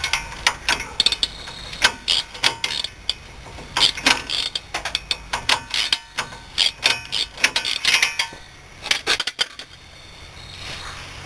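Hand ratchet wrench clicking in short, irregular runs as the strut's lower pinch bolt is slowly unscrewed. The clicking stops near the end.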